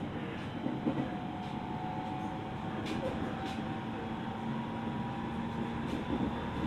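JR East 701 series electric multiple unit running on the rails, heard from inside its front car: a steady rolling rumble with steady humming tones and a few sharp clicks of the wheels over the track.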